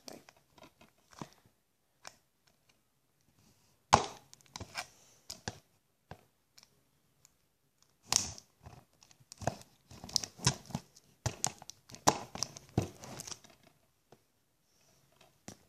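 Scissors snipping and plastic packaging crinkling as it is cut open, in irregular sharp clicks and rustles, with one loud snap about four seconds in and a busier run of snips and crinkles from about eight to thirteen seconds.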